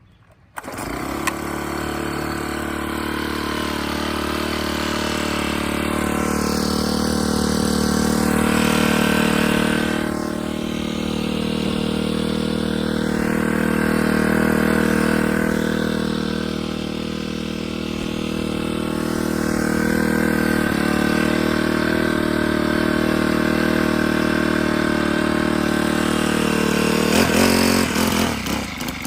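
Gas string trimmer (weed eater) engine running at high speed, swelling and easing slightly as it is worked. Near the end it drops back to a lower, uneven pulsing run. The trimmer has a newly replaced carburetor.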